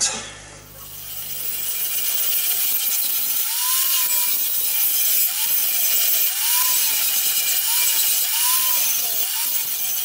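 Angle grinder grinding the old tube stubs off a steel bicycle bottom bracket shell: a loud hiss of the disc on steel over the motor's whine. The sound builds over the first couple of seconds, and the whine repeatedly sags in pitch as the disc is pressed into the metal, then climbs back as the pressure eases.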